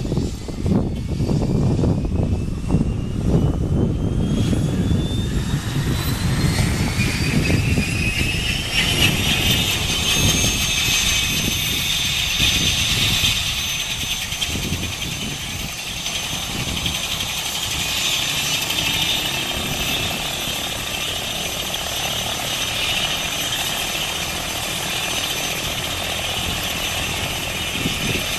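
Helicopter turbine engine starting up. Its whine climbs steadily in pitch for about the first ten seconds, then holds at a steady high whine as the main rotor begins to turn.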